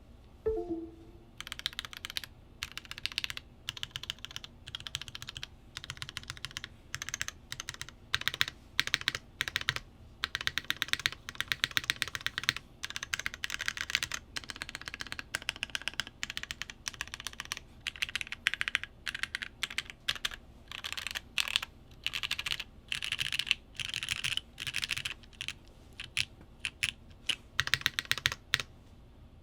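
Typing on a custom TKL mechanical keyboard with lubed and filmed Cherry MX Black linear switches, set in an O-ring-mounted aluminium plate and fitted with GMK keycaps. The typing comes as bursts of rapid keystrokes with short pauses between, starting about a second and a half in.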